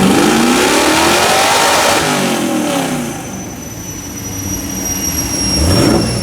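Fox Body Mustang engine revving on a chassis dyno: its pitch climbs for about two seconds, drops back, then climbs again near the end. A thin high whine comes in around the middle and slowly falls in pitch.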